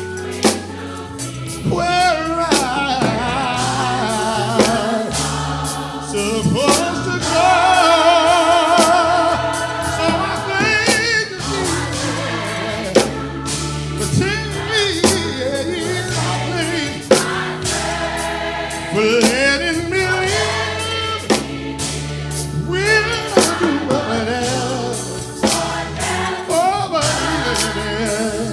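Gospel choir singing with a lead vocalist over a band with bass and drums, vocal runs with heavy vibrato over a steady beat.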